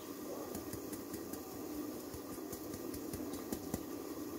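Wheat flour being sifted through a round sieve, the hand shaking and tapping its rim in light irregular taps, over a steady low hum.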